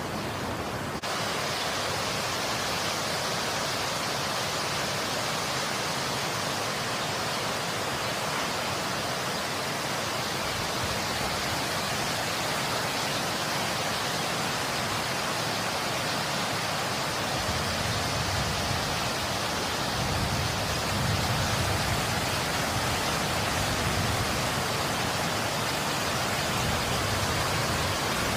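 Storm rain and wind making a steady, even hiss, with gusts adding a low rumble from about 18 seconds in.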